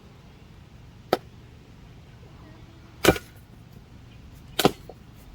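Three sharp, short knocks about a second and a half apart, the middle one the loudest, over a quiet steady background.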